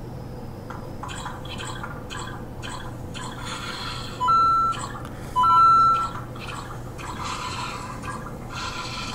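Two short electronic beeps about four and five and a half seconds in, each a steady tone that steps up in pitch, over light clicking and rustling of small plastic pieces being handled.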